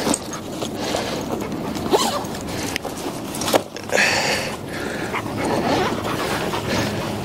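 Dog sounds close to the microphone from the hikers' Doberman, over a continuous rough, rustling noise. A few sharp clicks come about two, three and three and a half seconds in.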